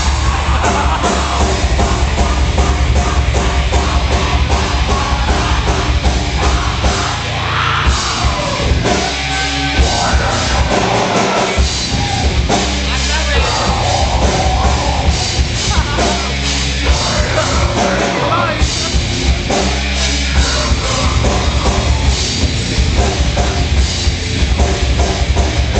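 Loud heavy rock music with a driving beat and shouted vocals, heard through a bar's noise.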